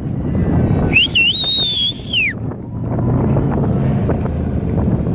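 Race car engine running hard, with a single tyre squeal about a second in that rises, holds and falls away after about a second and a half.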